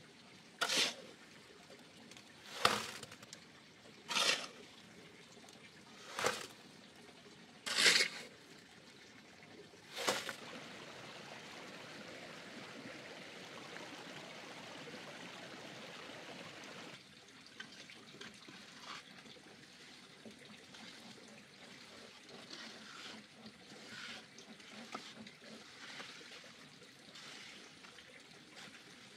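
Water splashing in a series of short strokes about every one and a half to two seconds, then a steady trickle for several seconds that cuts off, followed by quieter scattered dribbling.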